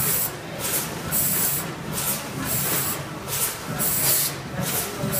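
Automatic bagging machinery running: short hisses of compressed air vent over and over, about once or twice a second, over a steady low machine hum.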